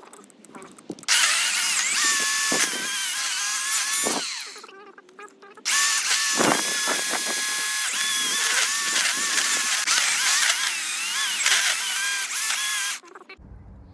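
Ryobi OCS1830 18-volt cordless chainsaw cutting through a tree stump in two runs, the first about three seconds long and the second about seven. Its electric motor whine wavers and dips in pitch as the chain loads up in the wood.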